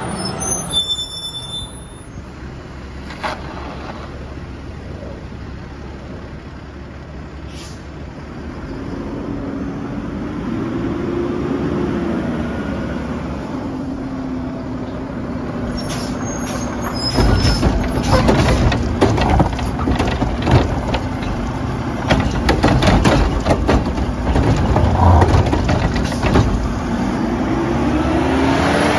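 Mack LR garbage truck: a short air-brake hiss near the start and the engine running, its pitch rising and falling. From about halfway the engine revs harder under load, with a run of clattering knocks, typical of the Curotto-Can arm lifting and shaking out a cart.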